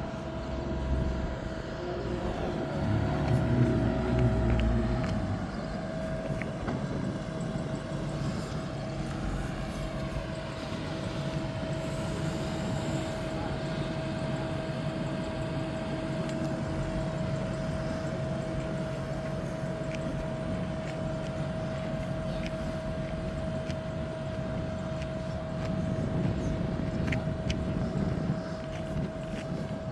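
Race car engine running at a distance, loudest in the first few seconds, over a steady background hum.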